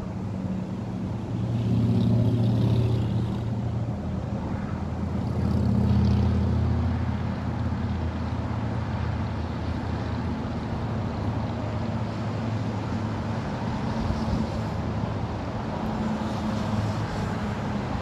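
Steady hum of road traffic, with two louder vehicles passing about two and six seconds in.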